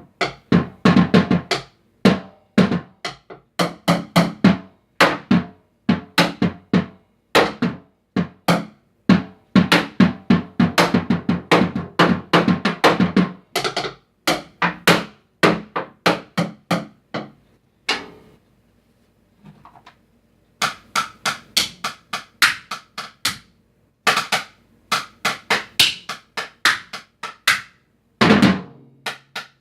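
Drums being played in fast runs of strikes. About two-thirds of the way through, the playing pauses briefly, then resumes with lighter, higher strikes before the full-bodied hits return.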